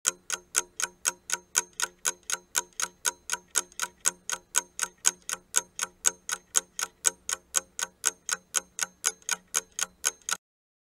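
Clock-ticking sound effect for a quiz countdown timer: rapid, even ticks, about four a second, stopping shortly before the end.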